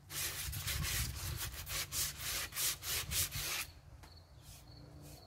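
Sandpaper rubbed back and forth by hand over the worn wood of a rocking chair, in quick scratchy strokes a few times a second. The strokes stop about three and a half seconds in.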